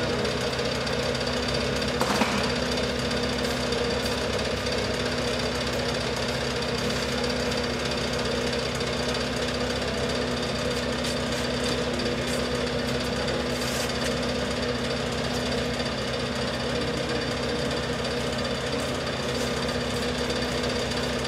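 Steady machine noise: a constant hum with a fast, even rattle underneath, with one sharp knock about two seconds in.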